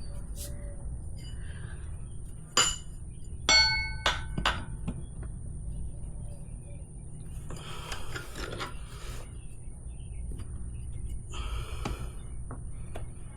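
Metal tire irons clanking against each other and the wheel rim: two sharp clanks a few seconds in, the second one ringing, then scraping and rubbing as the tire is levered on the rim.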